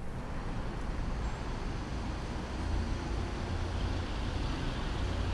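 Airport traffic ambience: a steady wash of vehicle noise with a deep engine rumble that grows stronger about two and a half seconds in, and a faint thin high whine above it.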